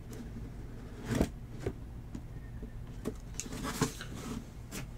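Low steady hum of room tone with a few faint, brief knocks and rustles, like small handling noises at a table.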